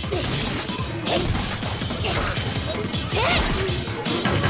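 Repeated smashing and whacking impacts of an animated fight, over dramatic background music.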